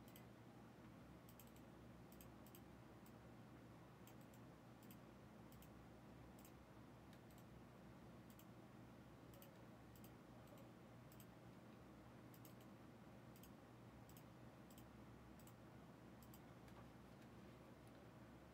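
Near silence: room tone with faint, irregular clicking scattered throughout, about one or two clicks a second.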